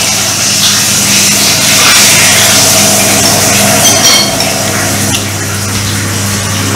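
A steady motor hum with a loud hiss, and a few light clinks of chopsticks against bowls.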